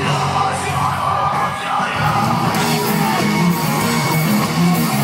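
Rock music with yelled vocals over guitars.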